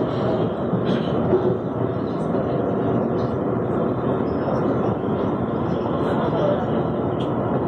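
Metro train running along the track, heard from inside the car: a steady, even rumble of wheels on rails.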